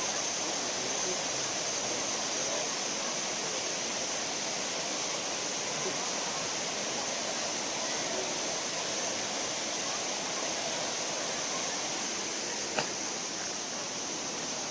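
Waterfall pouring steadily: an even rush of falling water with a high hiss on top. A single sharp click sounds near the end.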